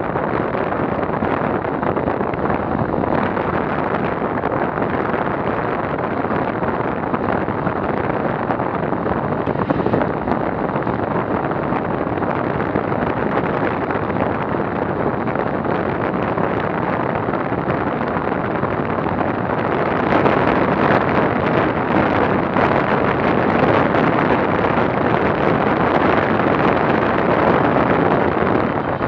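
Wind noise on the microphone of a handlebar-mounted action camera on a fast-moving bicycle. It is steady, and grows louder about 20 seconds in as the speed climbs toward 55 km/h.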